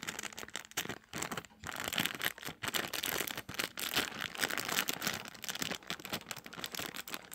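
Plastic packaging crinkling and rustling as it is handled, with many small irregular crackles.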